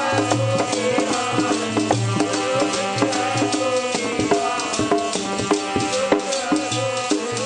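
Harmonium playing sustained chords and melody with tabla keeping a steady rhythm: an instrumental passage of Sikh kirtan.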